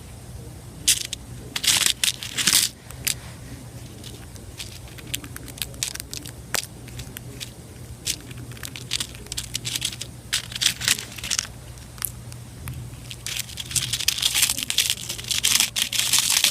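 A cockatiel pecking and tearing at a crumbly homemade bird muffin, making irregular sharp clicks and crackling bits that come thicker near the end.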